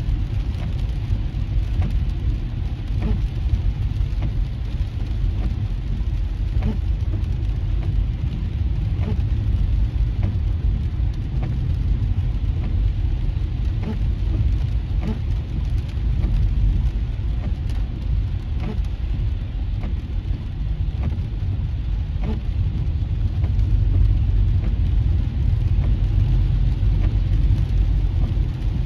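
Inside a car driving on a rain-soaked freeway: a steady low rumble of engine and tyres on wet road, with raindrops ticking on the windshield throughout.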